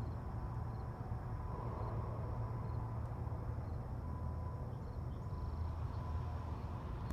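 Outdoor ambience: a steady low rumble with faint, short insect chirps repeating through it.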